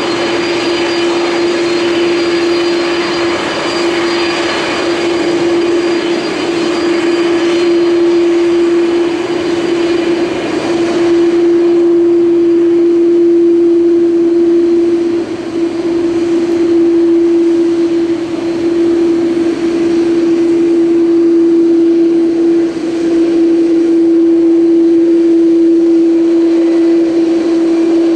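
Twin jet engines of an Airbus A330-200 running steadily on the runway, with a strong steady hum and fainter high whining tones.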